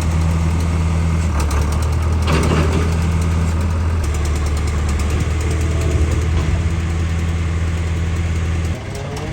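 Heavy equipment's engine idling with a steady low drone, dropping in level near the end.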